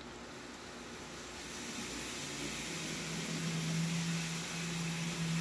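HO scale model train approaching on the layout: a hiss that grows louder, joined about two seconds in by a steady low hum from the locomotive's electric motor and gearing.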